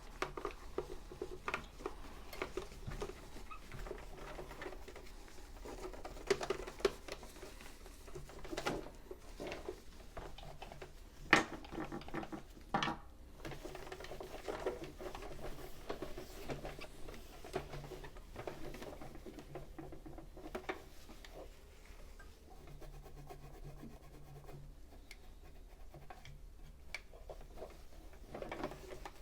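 A cleaning rag rubbing and wiping over the casing of a sewing machine, a scratchy rubbing with scattered light knocks and taps, the sharpest about eleven seconds in.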